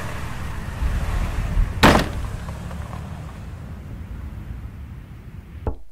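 A car engine running and fading away as the car drives off, with one sharp bang about two seconds in. A knock comes near the end.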